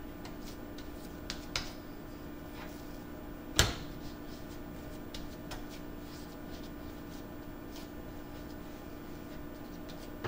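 Hands shaping sourdough dough on a bamboo cutting board: faint taps and rubbing, with one sharper knock on the board about three and a half seconds in, over a steady low hum.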